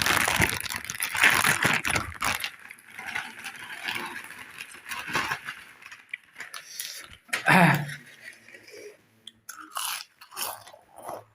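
Close-miked crunching and chewing of crunchy packaged snack chips. Loud, dense bites come in the first two seconds, then softer chewing with scattered crunches. A short voiced hum is heard about seven and a half seconds in.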